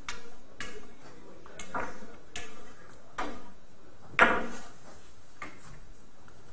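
Billiard balls clacking in an Italian five-pin game: a string of about seven sharp knocks spread over several seconds, each with a brief ring, the loudest about four seconds in.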